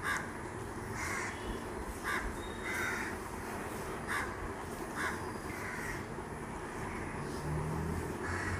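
Crows cawing, with short harsh caws coming roughly once a second at irregular intervals.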